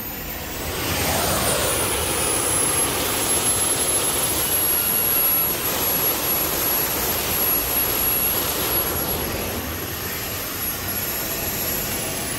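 Small turbojet engines on a jet-powered Tesla running and spooling up about a second in, with a loud rushing sound and a high whistling whine that climbs, then holds steady. The engines ease off slightly near the end.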